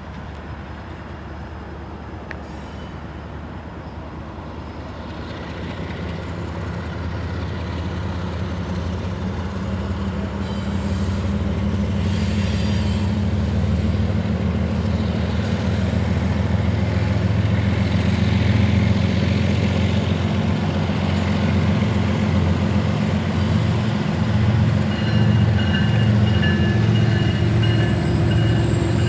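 Diesel locomotives of a train approaching, their engine rumble growing steadily louder over the first half and then holding.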